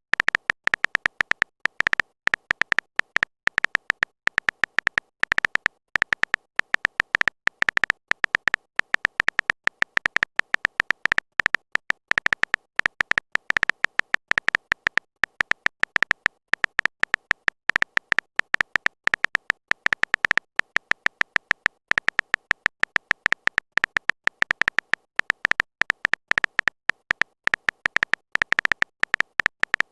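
A rapid, irregular stream of short electronic beeps at one high pitch, many per second, keeping on without a break.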